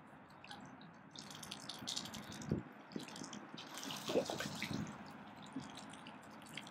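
Water splashing and dripping as water birds move and feed at the lake surface, in two short spells about two seconds in and again about four seconds in.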